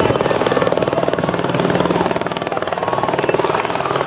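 Helicopter coming in to land close by, its rotor blades beating rapidly and evenly over the steady sound of its engine as it settles toward the ground.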